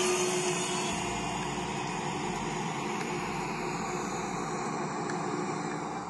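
A train running with a steady mechanical noise that slowly fades.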